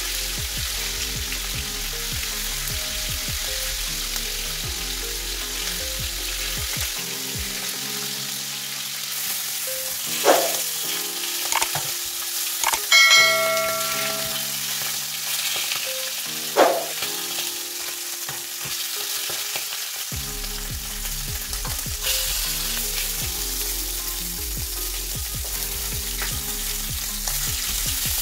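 Oxtail pieces sizzling steadily as they brown in hot oil in a stainless frying pan. Between about ten and seventeen seconds in, a knife and fork knock against the pan a few times while turning the meat, and one knock rings briefly.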